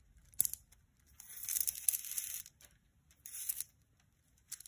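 String rasping as it is pulled through plastic pony beads, with the beads clicking against each other. There is a sharp click about half a second in, then a hissing pull lasting over a second, and two shorter pulls after it.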